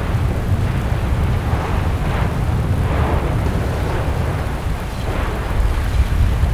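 Low, steady rumble of an erupting volcanic vent churning and spattering lava, with louder rushing surges every second or two.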